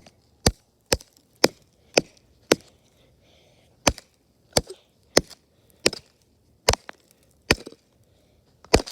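Wood being chopped: a quick run of sharp strikes, about two a second, with a brief pause about a third of the way through.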